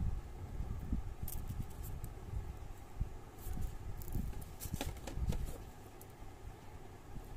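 Handling noise of a phone charger, its coiled USB cable and the cardboard box tray: soft low bumps throughout, with a few sharp clicks, the strongest about five seconds in.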